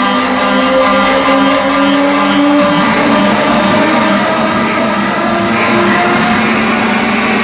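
Loud music with long held notes over a dense, steady accompaniment; the pitch changes about two and a half seconds in.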